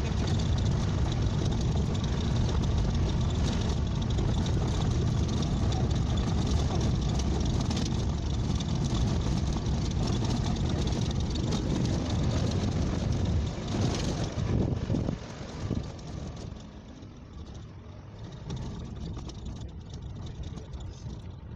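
Engine and road noise of a jeep driving, heard from on board: a steady low rumble that grows uneven about thirteen seconds in and falls off sharply about sixteen seconds in.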